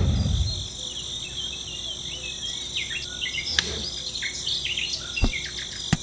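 Outdoor insects chirring in a steady high-pitched drone, with short bird chirps around the middle and two sharp clicks.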